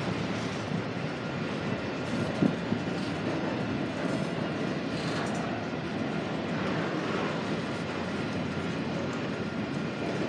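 Freight cars of a manifest train rolling past: a steady rumble of steel wheels on rail, with two sharp knocks close together about two and a half seconds in.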